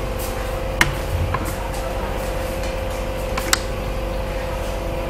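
Steady room hum with a constant mid-pitched tone, broken by a few short sharp clicks, one about a second in and a pair a little past three seconds.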